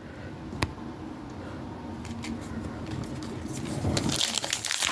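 Plastic wrapper of a Pokémon card pack crinkling as it is handled, getting louder and busier near the end, with a single sharp click about half a second in.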